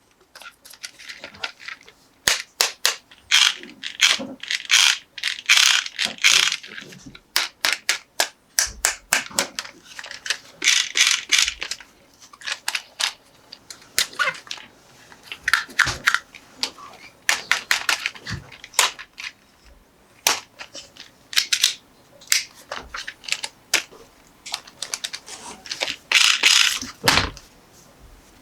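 Plastic toy and packaging being handled during an unboxing: irregular runs of sharp clicks and rattles mixed with short bursts of crinkling.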